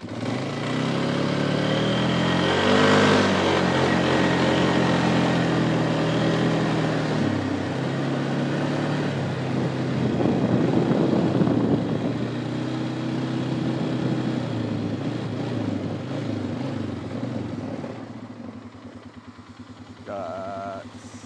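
Four-wheeler (ATV) engine under way, heard from the rider's seat: it speeds up with its pitch rising and falling through the gears, over a steady rush of noise, then slows and settles to a lower, quieter running near the end.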